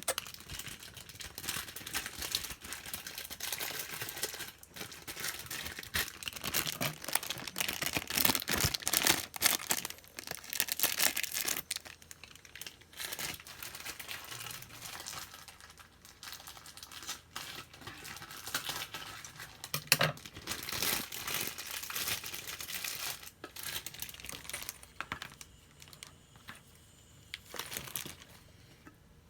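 Plastic packaging of a miniature toy set crinkling and tearing as it is handled and opened, in uneven runs of rustling with one sharp click about two-thirds of the way through.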